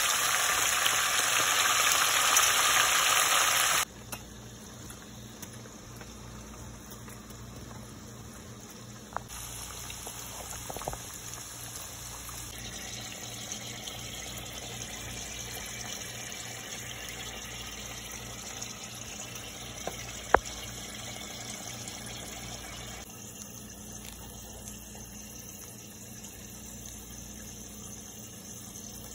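Pig tails deep-frying in a pot of hot oil: a loud, even sizzle that cuts off abruptly about four seconds in. After that, faint room noise with a low hum, a few small ticks and one sharp click about twenty seconds in.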